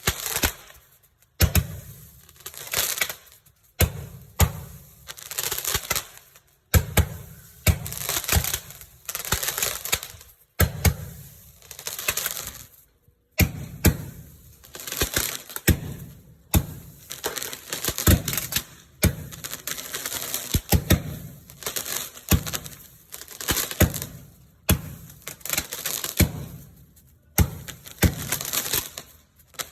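Firework cake firing shot after shot, about one every second or so: each a sharp pop followed by a burst of crackling.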